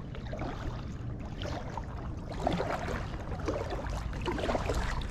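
Light lapping and trickling of water against a kayak's hull, with a steady low rumble of wind on the microphone.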